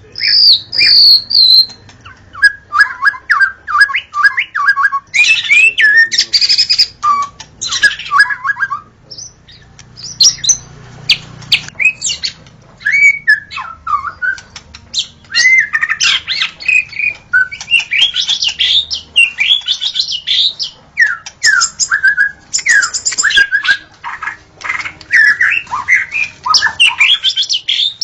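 Wild white-rumped shama singing a long, unbroken run of rapid, varied phrases: clear whistles mixed with quick chattering notes and short pauses.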